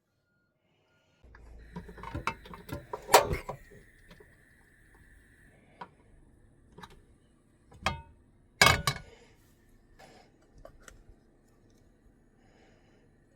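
Cookware being handled: scattered sharp knocks and clatters of a pan and utensils, the loudest about three seconds and nine seconds in, over a low steady hum.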